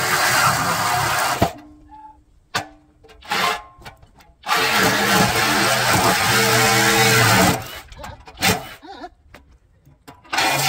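Flex 24-volt cordless reciprocating saw cutting through a steel trailer frame, run in bursts. It cuts off about a second and a half in, gives a few short trigger blips, runs steadily again for about three seconds, then starts once more near the end.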